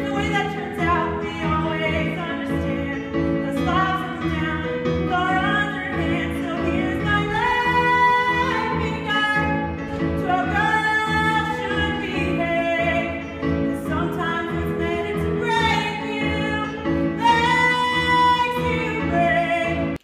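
A young woman singing a solo show tune with long held notes over an instrumental backing.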